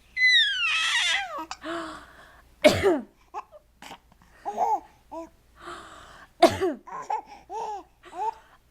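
A baby squealing, the pitch falling away, then two sharp coughs about four seconds apart, with the baby laughing and babbling in short arched bursts after each.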